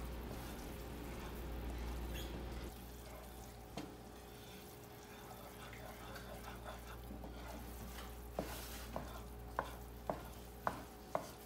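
Wooden spoon stirring chickpea flour roasting in oil in a frying pan: faint sizzling and scraping, with several sharp knocks of the spoon against the pan in the last few seconds.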